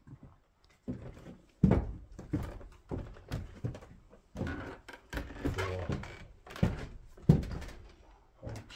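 Footsteps on the bare wooden plank floor of an old cabin's upper storey: about ten heavy, irregular thuds, ringing in the small board-walled room.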